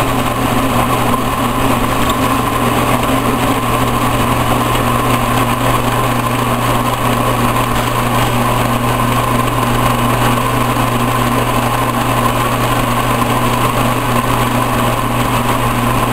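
Milling machine running steadily with its spindle at about 1400 rpm while milling a workpiece: an even machine hum with a steady whine.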